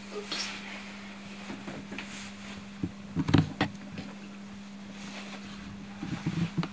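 A steady low hum, with a few soft knocks and rustles about three seconds in and again near the end, as a woman handles her hair and dress.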